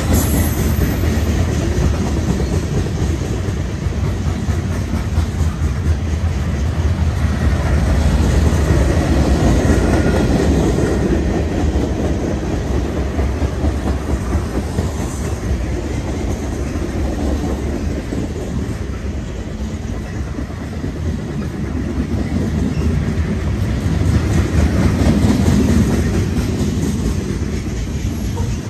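Freight cars of a mixed freight train rolling past close by, wheels clacking over rail joints under a steady low rolling noise that swells and dips in loudness.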